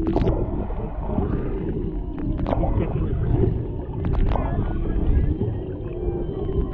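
Humpback whale vocalizations heard underwater through a camera's built-in microphone: wavering, gliding tones over a steady low water rumble, with a few sharp clicks.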